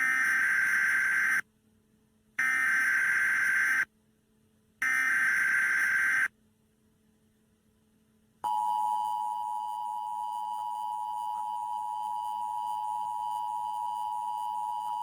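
Emergency Alert System broadcast tones. The digital SAME header sounds first as three identical buzzing data bursts, each about a second and a half long with a second's gap between them. About eight and a half seconds in, the steady two-tone EAS attention signal starts and holds unchanged.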